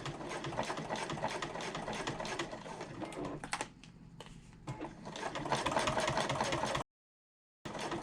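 Sewing machine running in fast, even needle strokes, topstitching through the layered fabric of a bag handle. It slows to a brief stop about three and a half seconds in, then starts stitching again. The sound cuts out completely for under a second near the end.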